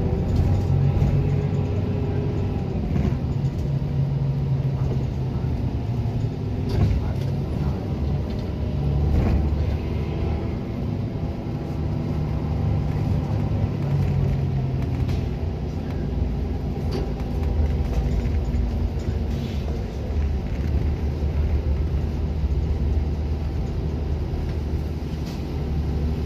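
Interior of a 2011 Gillig Advantage transit bus on the move: a steady low rumble of the diesel engine and road noise, the engine note shifting in pitch several times as the bus changes speed.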